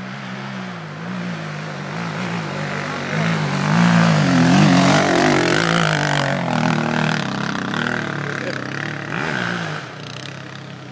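Dirt bike engines running as two off-road motorcycles come down a trail, the engine note wavering up and down as the throttle is worked. It grows louder as a bike passes close about four to six seconds in, then fades.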